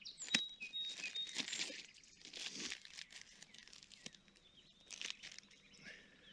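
Close rustling and crinkling handling noise with irregular sharp clicks, busiest in the first two seconds and again about five seconds in. A small bird chirps thinly in the background.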